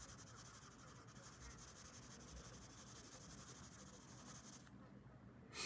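Coloured pencil shading on paper: a faint, rapid scratching of back-and-forth strokes that eases off about four and a half seconds in. A short tap comes near the end.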